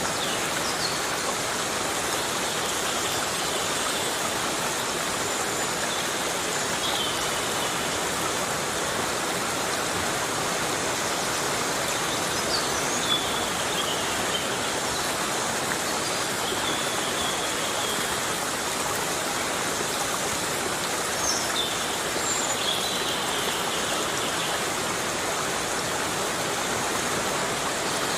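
Heavy rain falling steadily on rainforest foliage, a dense even hiss. A few faint, short, high calls break through now and then.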